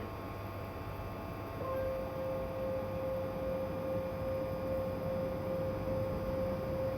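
Steady interior noise inside a JR 205 series 1000 electric commuter car, with a low hum. A steady single tone comes in about a second and a half in and holds.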